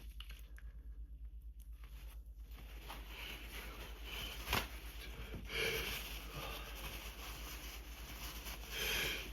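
A person breathing hard and sniffling in the middle of an allergy sneezing fit. Noisy breaths come about three seconds in, again around five and a half seconds and near the end, with a faint click in between, over a low steady hum.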